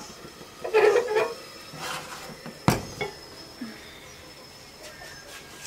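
Steel kadai and its lid being lifted off a gas stove burner and set down. There is a clatter of metal about a second in, then a single sharp knock a little later, followed by small clinks.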